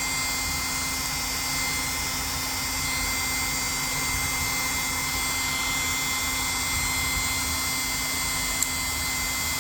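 A small power tool's electric motor whirring steadily while it drives a felt polishing pad, buffing the pocketknife's blades with rubbing compound.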